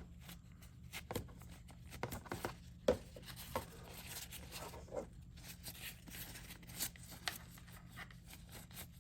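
Quiet handling sounds of a pre-moistened lens wipe being rubbed over a pair of eyeglasses: soft rubbing and rustling with scattered light clicks and taps.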